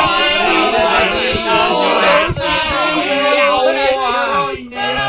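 Many overlapping sung voices at once, a dense layered chorus of the garbled reversed nursery-rhyme phrases, breaking off briefly near the end.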